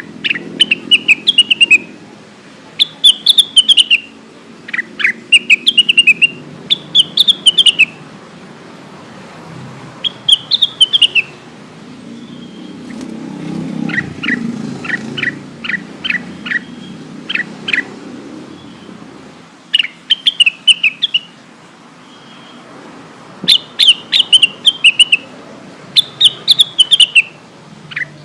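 Cucak wilis (Rengganis) song used as a lure call: clusters of quick, high falling chirps repeated every couple of seconds, with a run of about eight sharp separate notes in the middle, over a low background hum.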